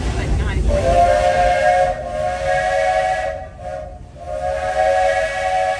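Walt Disney World Railroad steam locomotive's whistle sounding a chord of several tones in two blasts: a long one of about two and a half seconds, a short pause, then a second blast. The low rumble of the moving train sits beneath it at the start.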